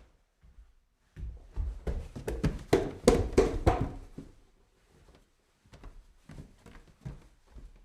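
A series of short knocks and taps, crowding into a quick, louder run of clattering for about three seconds near the middle before thinning out to scattered taps again.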